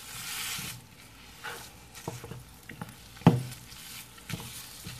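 Ground beef frying in a skillet, sizzling most loudly in the first second, while a Pampered Chef meat chopper is twisted and turned through it to crumble it. The tool scrapes the pan and knocks against it several times, with the loudest knock about three seconds in.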